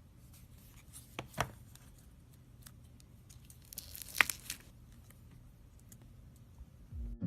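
Slime being handled: quiet sticky crackling with scattered clicks and pops, the loudest a little after a second in and about four seconds in. Music starts at the very end.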